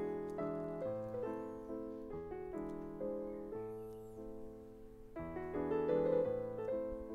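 Background piano music: a gentle melody of sustained notes.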